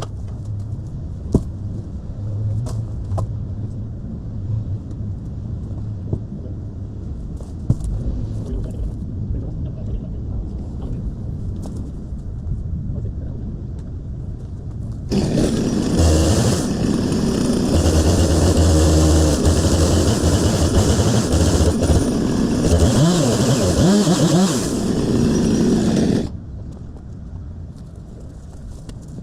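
Two-stroke chainsaw running and revving for about ten seconds, starting sharply about halfway through and cutting off abruptly; before it, a low steady rumble with occasional knocks.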